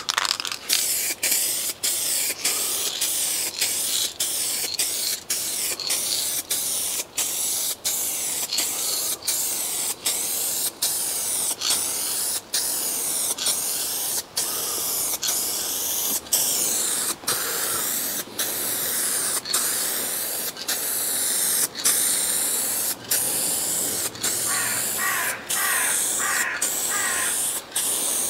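Aerosol spray can of paint hissing as the last coat goes on. The hiss is broken by brief breaks more than once a second.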